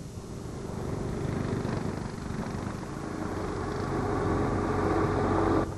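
Motorcycle engine running under way, with wind noise on the microphone; the engine grows louder and a little higher in pitch, then falls away suddenly near the end.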